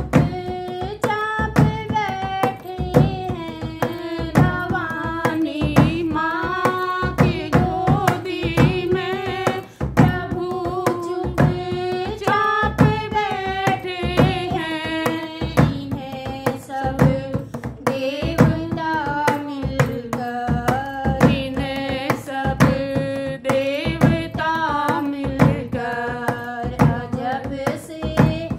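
A woman singing a Hindu devotional bhajan to Lord Ganesh, a gliding, sustained melody over steady percussive beats about twice a second.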